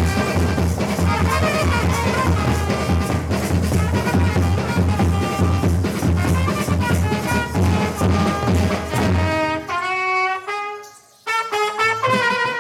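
Live band of large bass drums beaten with mallets and a trumpet playing dance music together; about nine and a half seconds in the drums stop and the trumpet carries on alone with sliding notes, breaking off briefly before starting again.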